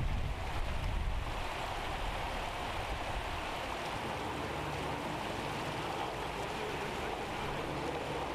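Floodwater rushing steadily, with a low rumble in the first second or so.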